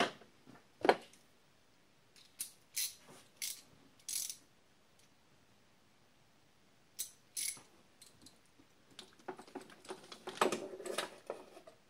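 Ratchet wrench with a 10 mm socket: scattered sharp metal clicks and clinks, then a busier run of clicking and rattling near the end as the socket is worked onto a hard-to-reach engine-bay bolt.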